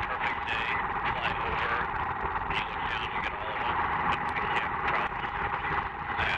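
Radio static hiss from an open radio or intercom channel, with faint garbled voice fragments in it, over a low rumble.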